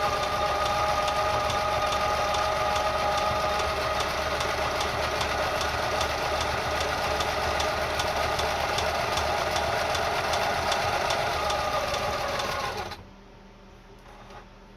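Kenmore 158.10500 sewing machine running steadily while sewing a stretch stitch, feeding the fabric back and forth: a steady motor whine with a regular clicking of the needle stroke. It stops abruptly near the end, leaving a few faint ticks.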